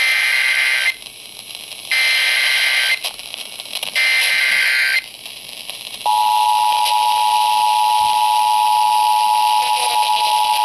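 Emergency Alert System header: three one-second bursts of screechy digital data tones, then, about six seconds in, the steady two-tone EAS attention signal starts and holds. This marks the start of an emergency alert broadcast.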